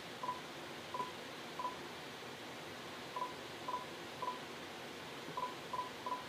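Phone keypad tones as a number is dialed: nine short beeps in three groups of three, with a pause after each group.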